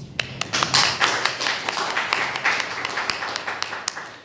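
Audience applauding: a dense patter of hand claps that starts at once, is loudest in the first second and dies away near the end.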